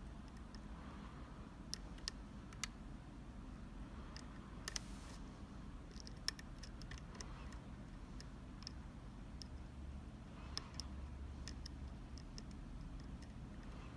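Lock picks working inside a Sargent Keso mortise cylinder: faint, scattered sharp metallic clicks and ticks of the tools against the pins, a close double click about a third of the way in the loudest. A steady low hum lies under them.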